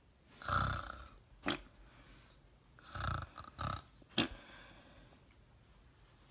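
A person imitating snoring: two snores about two and a half seconds apart, each followed by a short sharp puff of breath.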